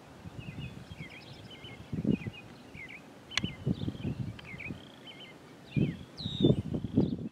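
Small birds chirping over and over, with several sudden gusts of wind buffeting the microphone, the loudest about two seconds in and near the end, and one sharp click a little past halfway.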